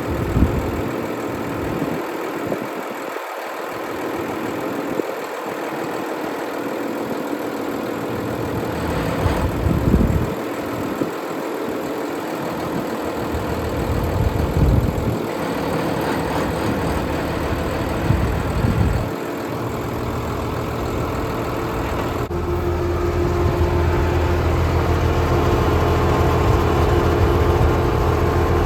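Tractor engine running steadily while the front-end loader's hydraulics are worked to test newly replaced hydraulic couplers. About 22 seconds in, the engine note steps up and runs louder.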